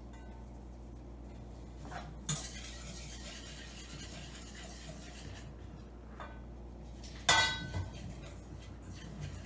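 Batter ingredients going into a stainless steel mixing bowl. There are light knocks about two seconds in, then a few seconds of soft hissing as something is poured in. About seven seconds in comes a sharp ringing clink against the bowl.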